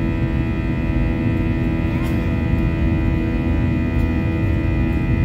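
Airbus A321 jet engines and airflow heard inside the cabin over the wing during the climb after takeoff: a steady deep rumble with a hum of several constant tones above it.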